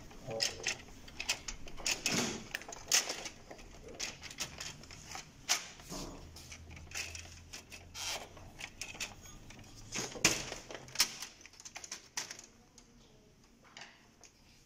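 Irregular clicks, taps and rattles of the plastic casing and sheet-metal side plate of an HP LaserJet 1320 printer being handled and worked loose by hand. The sharpest clicks come about three and ten seconds in, and they thin out near the end.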